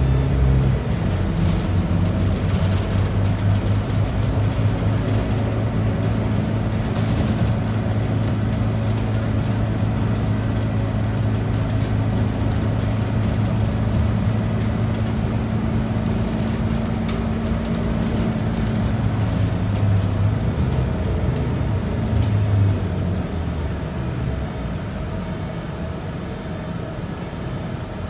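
Scania DC9 nine-litre six-cylinder diesel of a Scania K94UB bus with ZF automatic gearbox, heard from inside the cabin, running steadily under way. About two-thirds of the way through, the engine note drops away and the sound gets quieter as the bus slows.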